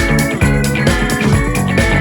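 Background music: a rock track with guitar and a steady beat.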